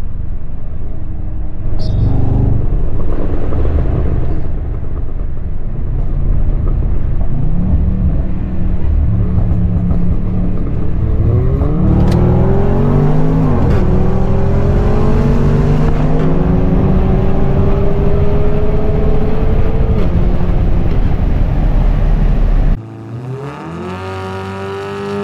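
Turbocharged 2.0-litre four-cylinder engine of a Stage 3 Volkswagen Golf R, heard from inside the cabin under hard acceleration. It is a loud low drone whose pitch climbs and falls back at each gear change. Near the end it cuts suddenly to a quieter engine note.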